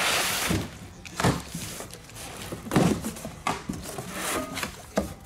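Cardboard box being cut open and handled: a short ripping scrape of packing tape at the start, then rustling of the flaps and several thumps, the heaviest about three seconds in.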